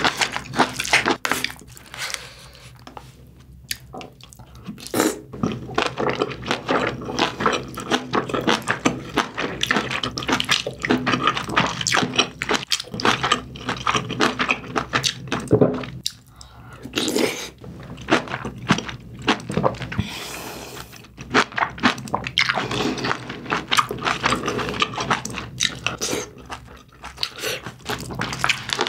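Close-up eating sounds: a wooden spoon stirring and scraping a rice bowl mixed with braised kimchi, then wet chewing of braised kimchi and pork, with many small clicks and smacks.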